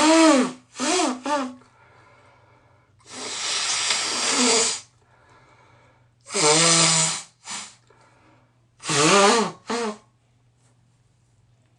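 A congested nose blown hard and wetly into a tissue, again and again: each blow is a rush of air, several with a honking tone that bends down in pitch. The longest lasts nearly two seconds, and some are followed by a short extra puff; the blowing stops about ten seconds in.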